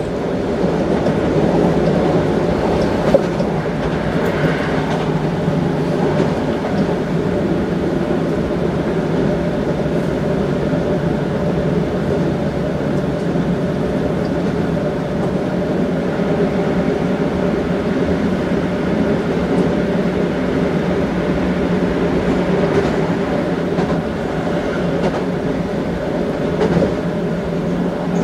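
Toei Asakusa Line 5300 series subway train running at steady speed, heard from inside the passenger car: a continuous rumble of wheels on rail with a steady hum, and a brief click about three seconds in.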